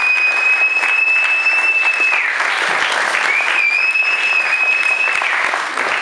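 Strong wind rushing loudly with a thin high whistle that holds steady, slides down and drops out about two seconds in, returns a second later, and falls away again near the end.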